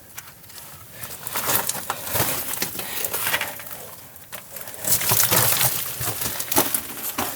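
Footsteps crunching on loose rock and gravel, a string of uneven steps that grows louder about five seconds in.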